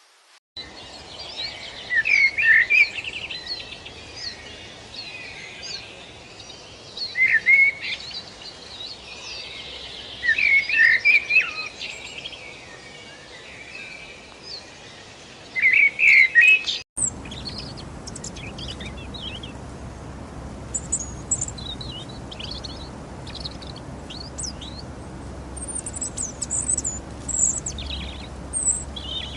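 Birds calling in loud, quick warbling phrases that come in clusters every few seconds over a steady high-pitched background chorus. About seventeen seconds in the sound cuts abruptly to fainter, higher chirps over a low steady noise.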